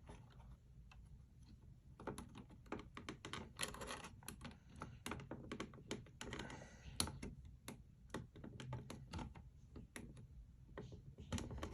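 Irregular small plastic clicks and taps, starting about two seconds in, as new rubber thumbstick caps are handled and pushed onto the analog stick shafts of an opened Xbox One controller.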